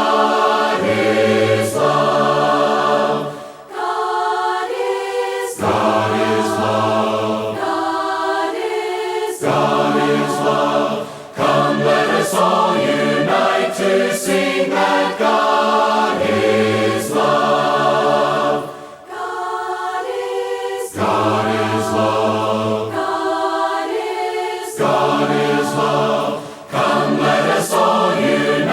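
Choir singing a slow hymn a cappella, in long held phrases with brief breaks between them every seven or eight seconds.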